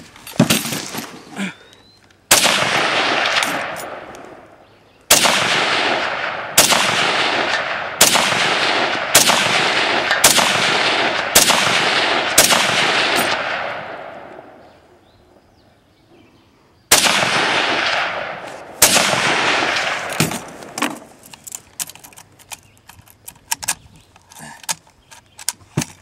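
Ten rifle shots from an SKS rifle, each with a long echoing tail: one, then seven in a quick run about a second apart, a pause of about four seconds, and two more. Light metallic clicks of the rifle being handled follow near the end.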